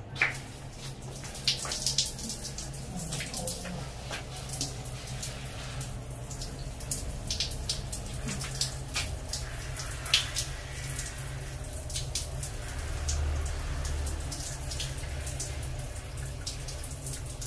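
Shower water pouring and splashing over a wet baby monkey as a person's hands rinse it, with frequent short, sharp splashes over a steady low rumble.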